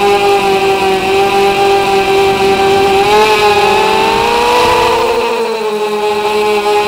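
Brushless motors and propellers of a small FPV tricopter, heard from its onboard camera: a loud, steady high whine. About four seconds in, as it banks through a turn, the pitch rises, then settles back to its cruising tone.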